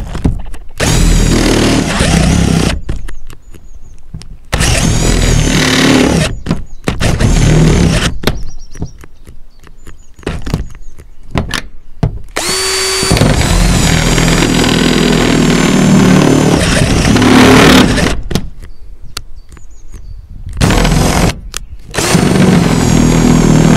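Cordless drill with a conical step drill bit cutting a hole through painted sheet-metal roof panel. It runs in several bursts with short pauses between them, its motor whine rising and falling as the trigger is pressed and eased.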